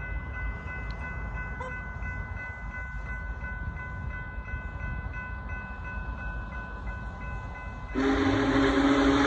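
Union Pacific 4014 Big Boy steam locomotive approaching, heard as a low rumble under the steady ringing of a level-crossing bell. About eight seconds in, the locomotive's steam whistle sounds loudly and holds as a full chord.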